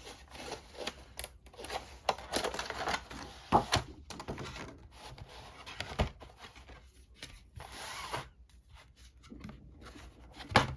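Small cardboard game box being opened and its contents handled: irregular rustling, scraping and light clicks of card and cardboard.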